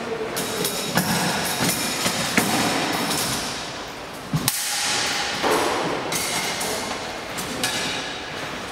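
Sidesword sparring: feet thudding and scuffing on a wooden sports-hall floor, with scattered sharp knocks of blade contact, the heaviest thud about four and a half seconds in, over a steady hiss.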